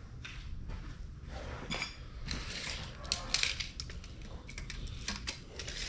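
Hand tools and metal parts being handled: a run of clicks, ticks and scrapes, busiest around the middle, over a low steady hum.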